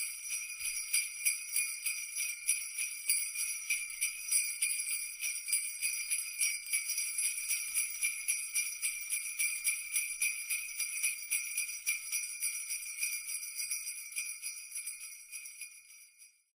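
Sleigh bells shaken in a quick, steady rhythm (the Christmas "shan shan shan" jingle), fading out over the last couple of seconds and then stopping.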